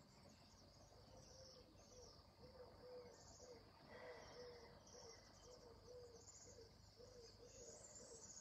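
Faint outdoor wildlife: steady high-pitched chirping with a short low call repeated about three times a second.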